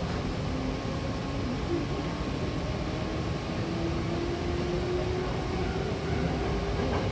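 Hankyu electric train heard from inside the car while under way: a steady rumble of wheels and running gear, with a motor whine that rises slowly in pitch as the train picks up speed.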